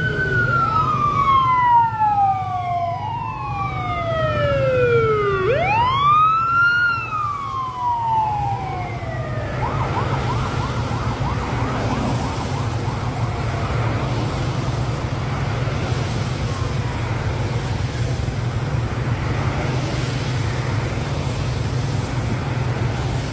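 Traffic police escort siren wailing, its pitch sweeping up and down slowly every few seconds. It fades out about ten seconds in, leaving a steady engine hum and road noise.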